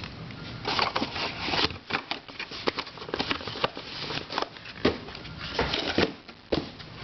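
Plastic twisty puzzles being handled and moved on a shelf: irregular clicks, knocks and short rattling scrapes of plastic pieces.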